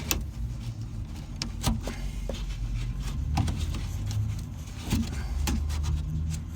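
Scattered sharp clicks and knocks of parts being handled and unclipped inside a car door's lock mechanism, over a low steady hum.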